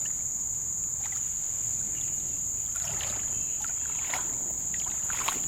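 Steady high-pitched drone of insects, with a few soft water splashes about a second apart from paddling a small boat down the river.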